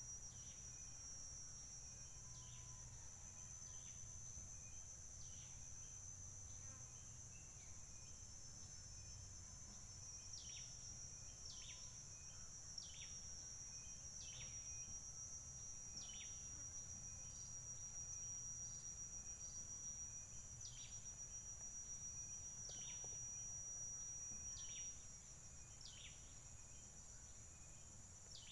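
Faint, steady high-pitched drone of insects, with a short falling call repeating every second or so, clearer from about ten seconds in, over a low hum.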